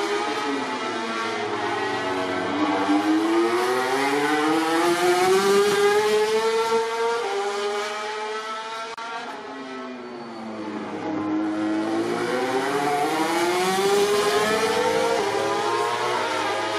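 MotoGP racing motorcycle engines running hard, their pitch climbing and falling again and again with a sudden drop about seven seconds in. The sound fades for a moment around ten seconds in before rising again.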